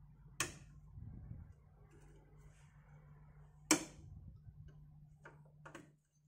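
Sharp clicks from handling RAM modules at a motherboard's memory slots: two loud clicks, one just after the start and one past the middle, then two softer ones near the end, over a faint steady low hum.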